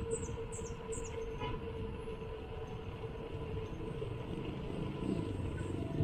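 Bicycle rolling along a concrete road, picked up by a handlebar-mounted camera: steady tyre rumble and wind noise with a constant hum running under it, growing slightly louder near the end.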